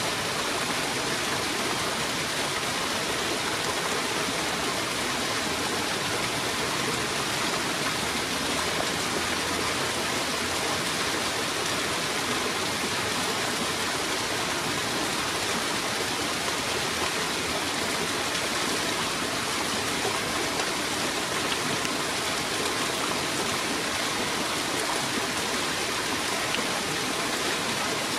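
Rain falling on the surface of a pond: a steady, even hiss of drops that does not let up.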